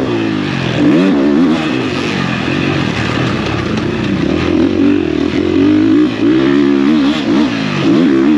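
Motocross bike engine ridden hard on a dirt track, its pitch rising and falling about once a second as the throttle is opened and rolled off through the turns and shifts.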